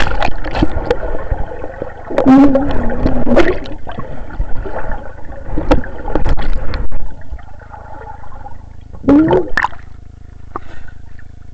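Underwater sound in a swimming pool, picked up with the camera held below the surface: bubbling and gurgling water. A person's voice, muffled by the water, makes a wavering call about two seconds in and again near nine seconds.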